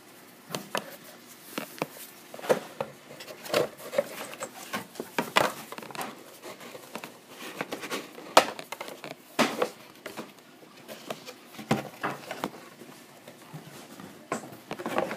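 Handling noise of a folded mounted cardboard game board being lifted and unfolded by hand: irregular knocks, taps and rustles, the loudest knock about eight seconds in.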